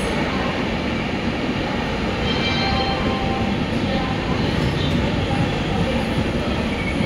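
Swarna Shatabdi Express passenger coaches rolling past, a steady rumble of steel wheels on the rails.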